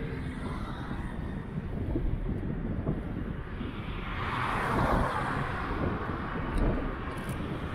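Wind rumbling on the microphone of a bicycle-mounted camera, with a car passing from behind about halfway through, its road noise swelling and then fading.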